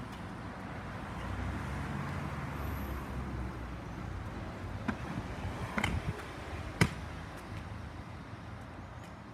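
Pro scooter wheels rolling over concrete as a steady low rumble that fades in the second half. A few sharp knocks, scooter or foot striking the concrete, come a little past halfway.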